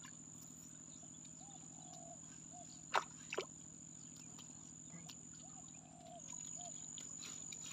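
Insects buzzing steadily at a high pitch, with short repeated low calls and two sharp clicks about three seconds in.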